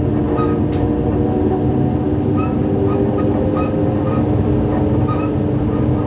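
Z2N electric multiple unit Z 20892 running, with a steady electric hum and rumble. Short high squeaks recur roughly twice a second.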